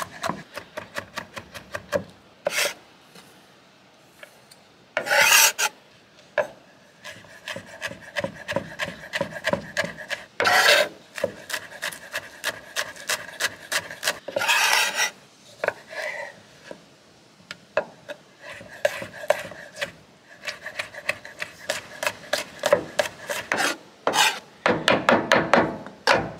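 Chef's knife chopping garlic, chilli and basil on a wooden chopping board: fast runs of sharp taps, broken every few seconds by a longer scrape of the blade across the board.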